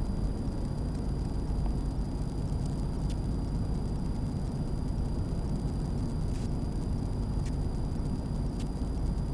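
Steady road and engine noise inside the cab of a Ford F-350 diesel pickup cruising at highway speed on smooth pavement.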